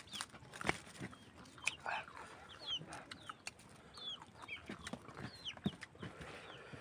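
Chickens clucking and chirping: many short, quick falling calls one after another, with scattered clicks between them.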